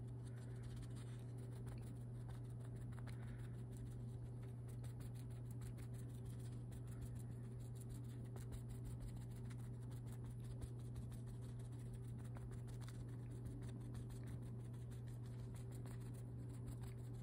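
Stiff paintbrush dry-brushing and dabbing paint into canvas coverall fabric: a faint, continuous scratching with many small ticks, over a steady low hum.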